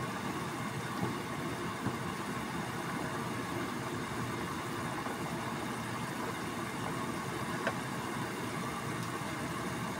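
Water boiling hard in a stainless skillet around chicken franks: a steady bubbling rumble. A few short clicks stand out about one and two seconds in and again near the end.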